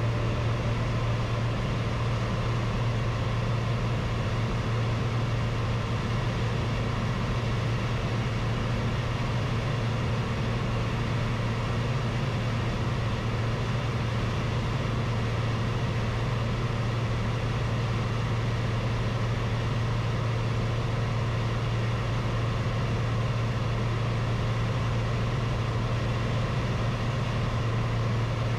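Single-engine light aircraft's piston engine and propeller running steadily in flight, heard inside the cabin as an unchanging drone with a strong low hum.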